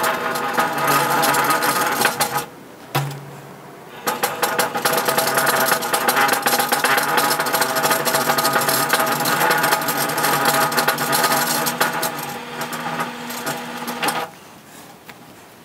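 Bead roller turning a 3-inch steel exhaust tube between its rollers: a dense metallic rattling clatter with a ringing tone. It stops about two and a half seconds in, gives a short burst a moment later, then runs again from about four seconds until shortly before the end.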